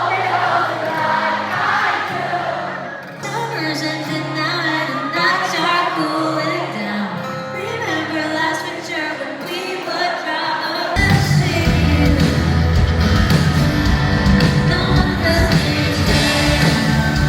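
A song with a sung melody over light accompaniment; about eleven seconds in, a full band with heavy drums and bass comes in and the music gets louder.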